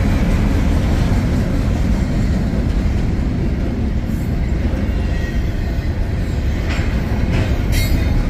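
BNSF double-stack intermodal freight train rolling past: a steady rumble of steel wheels on the rails as the container well cars go by, with two brief sharper clatters near the end.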